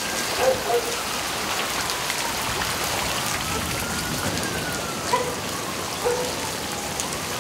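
Steady heavy rain pouring down, with close drips, and a faint siren slowly wailing up and down behind it. A few short, high chirp-like blips come through, about half a second in and again near the end.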